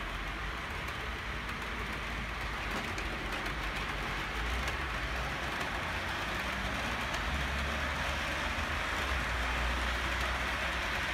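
OO gauge model Class 47 diesel locomotive and its coaches running along the layout track: a steady rolling hiss and low rumble with faint clicks, growing slightly louder as the train passes.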